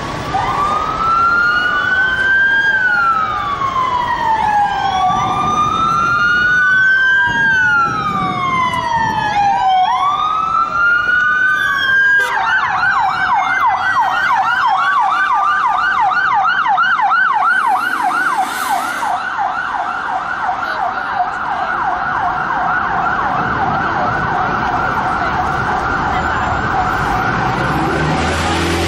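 Sirens of unmarked police cars on an emergency run: three slow rising-and-falling wails, then about twelve seconds in the siren switches to a fast, rapidly repeating yelp that continues, with a second siren sounding over it.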